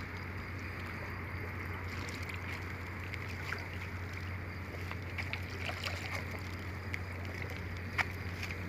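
Shallow creek water running over rocks, with a few small clicks and splashes and one sharper click about eight seconds in, over a steady low hum.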